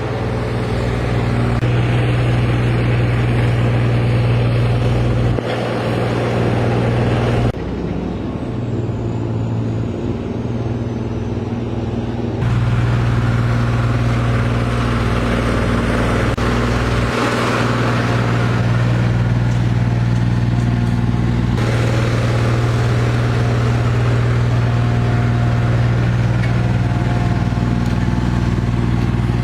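Engine of heavy road-works machinery running steadily with a deep, even hum, broken by abrupt jumps in the sound several times where clips are cut together.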